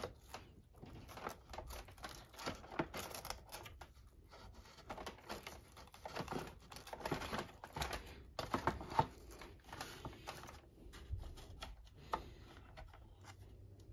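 Irregular small plastic clicks, taps and rattles as a brush roll is worked back into its slots in the plastic base of a Hoover vacuum and pressed into place.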